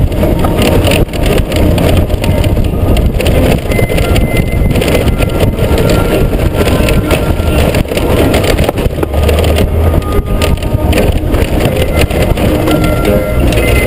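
Honda GoldWing GL1500 ridden over a rough gravel track: loose stones crunching under the tyres with constant knocks and rattles, over the low running of its flat-six engine.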